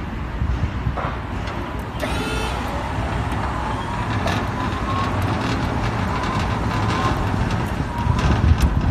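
Electric walk-behind pallet stacker being driven and turned: a faint wavering whine from its electric drive over a steady low rumble of outdoor noise, with a brief higher-pitched sound about two seconds in.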